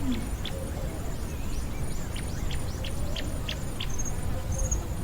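Small birds chirping in many short, quick notes over a steady, evenly pulsing high trill and a low rumble.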